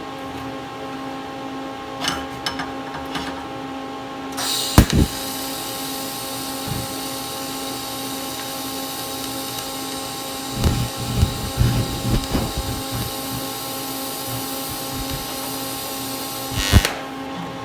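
Miller TIG welder arc struck with a sharp click about four and a half seconds in, then a steady hiss for about twelve seconds while a 5/16 inch steel rod is welded, cut off sharply near the end. A few low knocks come midway through the weld.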